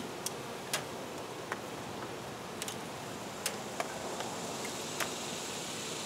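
Steady buzzing of a colony of honey bees around an opened hive, with scattered sharp clicks, about ten, at irregular times.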